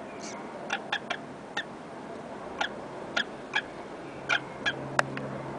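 About ten short, sharp squeaks at irregular intervals from small animals in a hutch, the sharpest one about five seconds in.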